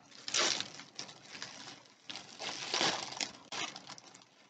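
Packaging rustling in a few short bursts as a package is handled and opened by hand.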